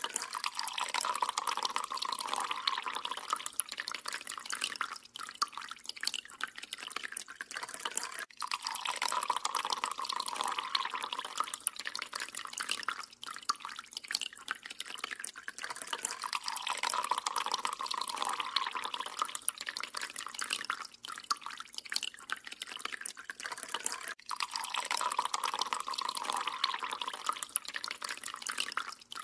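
Water dripping from a kitchen tap into the sink in a steady run of small drips, with a hiss that swells and fades about every eight seconds.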